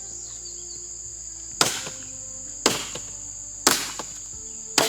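Axe chopping wood: four sharp strikes about a second apart, over a steady high drone of insects.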